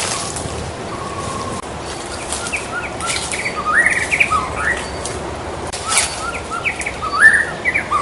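White-rumped shama (murai batu) singing: quick phrases of clear whistled notes that slide up and down, coming in bursts from about two seconds in.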